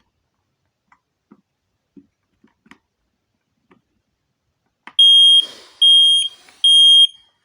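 A few faint handling clicks, then about five seconds in a smoke alarm's piezo sounder gives three loud, high-pitched beeps of about half a second each with short gaps between them: the temporal-three fire-alarm pattern, as when its test button is pressed.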